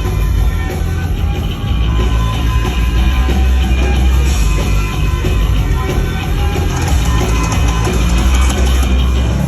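Live rock band playing loud with no vocals: heavy drum kit and deep, driving bass in a fast instrumental section, heard through the room of a concert venue.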